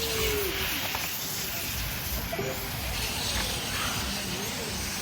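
1/10-scale electric on-road RC cars racing: a steady hiss of motors and tyres on the track, with faint whines rising and falling as the cars speed up and slow for corners.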